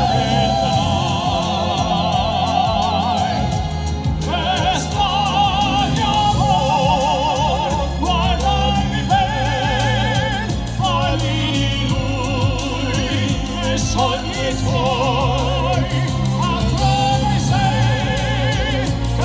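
Classical-crossover vocal group singing in operatic style, several voices with strong vibrato, over instrumental accompaniment with a steady bass.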